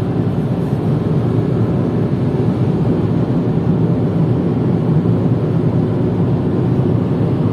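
Steady in-cabin road, tyre and wind noise of a Chevrolet Cobalt cruising at about 130 km/h on a motorway, with the engine's hum underneath.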